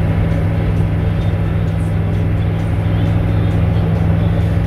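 Loud, steady drone of a military Humvee's diesel engine and drivetrain, heard from inside the cabin while driving at an even speed.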